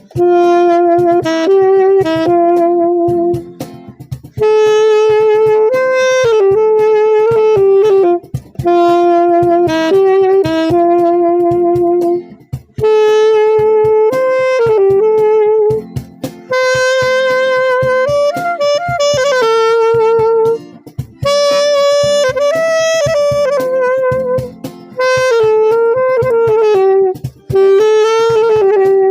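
Saxophone playing a slow, held-note melody in phrases of a few seconds with short breath pauses between them, over a light guitar accompaniment.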